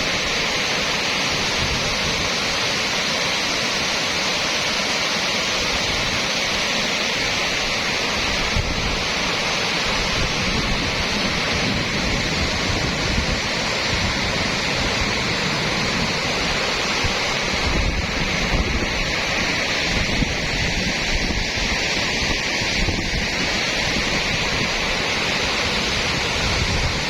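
Floodwater rushing down a swollen seasonal stream after heavy rain, a steady, unbroken rush of water. Wind buffets the microphone now and then, more heavily in the second half.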